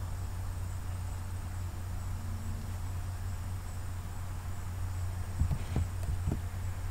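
Steady low electrical hum with a faint, evenly pulsing high-pitched whine over it, and a few soft clicks about five and a half to six seconds in.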